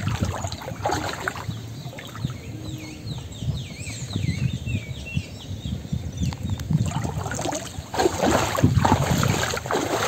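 Wind rumbling on the microphone, louder near the end, with a small bird chirping a quick run of high, falling notes in the middle.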